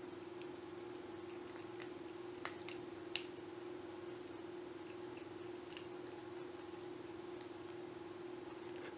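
A clear plastic cup handled by hand, giving a few sharp clicks about two and a half to three seconds in and faint scattered ticks, over a steady low hum.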